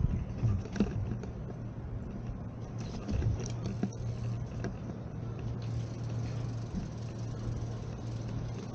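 City street ambience: a steady low hum with a few scattered light clicks and taps over it.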